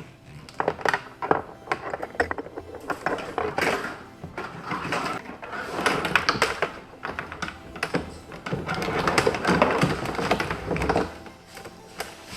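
Close, busy handling noise of hands working with small parts: a rapid, irregular run of clicks, taps and scrapes that stops about a second before the end, over faint background music.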